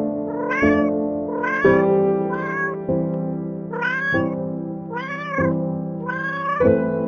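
A cat meowing repeatedly, about six meows, each rising then falling in pitch, over background music with sustained chords.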